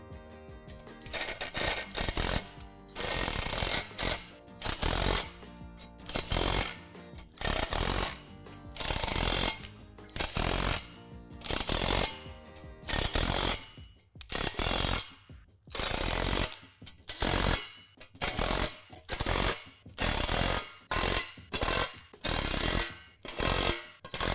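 Cordless drill driving the bolts that join the ladder rungs to the metal climber leg, running in short bursts about once a second.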